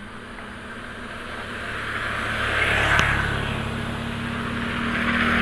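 Motor scooters passing close by on a concrete road: their small engines' hum and tyre noise swell to one peak about three seconds in and build to a second pass near the end.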